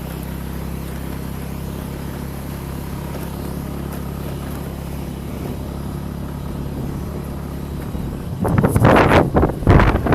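A vehicle engine running steadily at a low hum while driving. About eight seconds in, loud, irregular wind buffeting on the microphone breaks in and drowns it.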